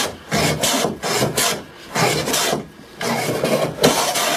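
Hand plane shaving a wooden board in about five quick strokes, each a rasping hiss with a short pause between, taking down the high ends of the board to true it.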